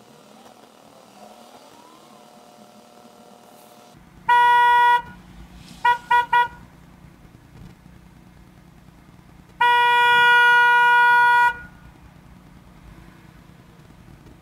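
Car horn sounding insistently from a car behind: a short blast about four seconds in, three quick toots, then a long blast of about two seconds. Impatient honking at a car stopped at the lights.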